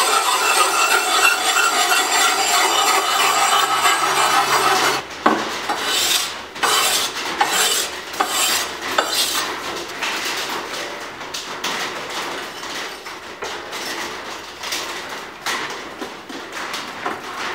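A hand-held abrasive block scrubbed back and forth along a wet steel machete blade, a rasping rub. The sound is dense and even for about the first five seconds, then breaks into separate quick strokes.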